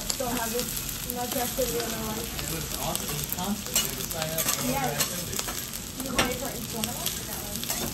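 Egg sizzling on a hot steel teppanyaki griddle while a metal spatula scrapes and taps against the plate, breaking it up, with several sharp scraping clicks among the steady sizzle.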